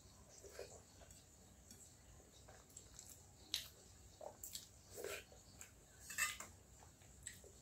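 Quiet eating by hand: scattered wet smacks and small clicks of chewing, with light touches of fingers and food against steel bowls. The loudest is a short cluster about six seconds in.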